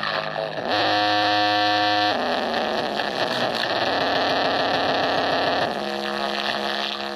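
Sound-check test audio played through a sound system: a steady, loud hiss-like noise, with held buzzy tones layered in about a second in and again near the end.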